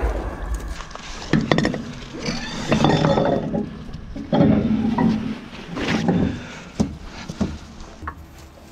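Metal clanks and clinks as a gunner handles a 152-mm cartridge case at the breech of a Giatsint-B towed howitzer during loading, opening on a single heavy thump. The clanking comes in several irregular bouts and fades out near the end.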